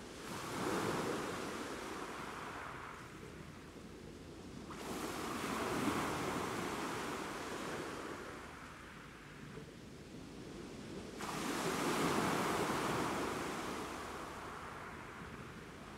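Sea waves washing in among shoreline rocks: three surges about five to six seconds apart, each coming in and slowly falling away.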